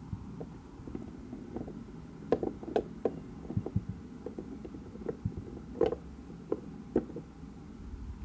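Light, irregular taps and clicks of small plastic toy dolls being handled and set down in a toy dollhouse, over low handling rumble on the phone's microphone.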